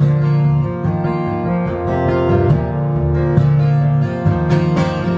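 Acoustic guitar strumming chords, a run of steady strokes with the chords ringing between them.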